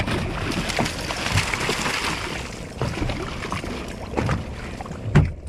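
Water splashing hard against the side of a small fibreglass boat as a hooked kingfish thrashes at the surface and is pulled in with a pole. The splashing is heaviest in the first few seconds, with scattered knocks and a sharp thump near the end.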